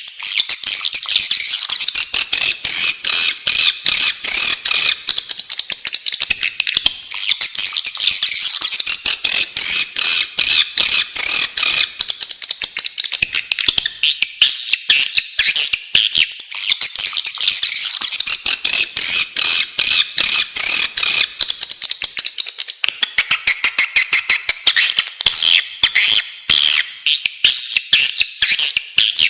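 Recorded swiftlet lure call: a dense, unbroken stream of rapid, high-pitched twittering chirps and clicks from swiftlets, the sound played to draw the birds into a nesting house.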